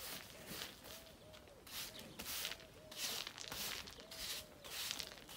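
Broom sweeping a bare dirt-and-gravel yard in repeated brisk scraping strokes.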